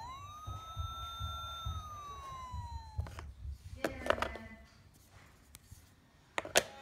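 An electronic ambulance siren sound from a wooden sound-block toy plays one wail, rising quickly, holding, then falling away over about three seconds; it is triggered by the matched ambulance halves in the tray. Then the wooden cubes clack as they are lifted and turned, and a sharp wooden knock near the end comes as a cube is set back into the tray.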